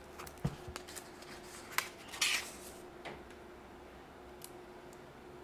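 Pages of a thick paperback book being handled and turned: a soft knock about half a second in, a sharp click near two seconds, then a brief papery swish. A faint steady hum runs underneath.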